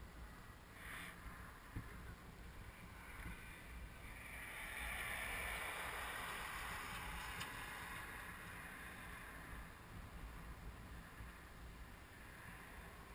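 Wind on the microphone: a steady low rumble, with a soft hiss that swells for a few seconds in the middle and then fades.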